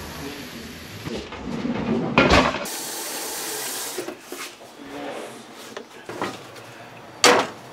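Kitchen clatter, then cooking oil poured from a bottle into an empty nonstick frying pan with a thin, even hiss lasting about a second and a half. A sharp knock comes near the end.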